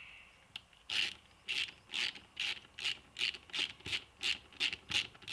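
Ratchet wrench clicking in short bursts, about two to three strokes a second and slightly quickening, starting about a second in, as a bolt is run into the top of a Kawasaki LTD 440 fork leg.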